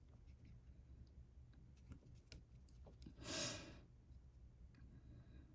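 Quiet crocheting: faint, sparse clicks of a crochet hook working yarn, with one short exhaled breath about three seconds in.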